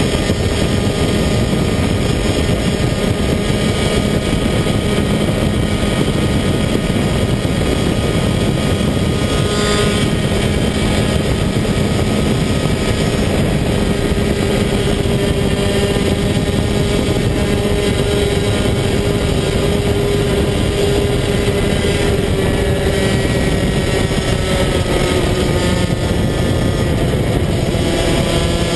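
Rotax DD2 125cc two-stroke kart engine running hard at high revs, heard on board. Its note holds high for most of the time, drops for a corner late on and climbs again near the end.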